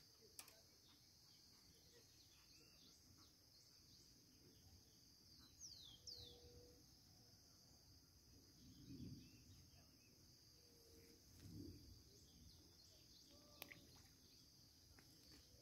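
Faint, steady, high-pitched chorus of insects along the riverbank, with two quick falling bird whistles about six seconds in.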